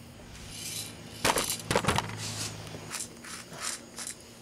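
Handling noises: a few knocks and light metallic clinks, two louder ones about a second and a half in, as the camera is moved and a metal aerosol can is set down on a concrete floor. A faint low hum stops about three seconds in.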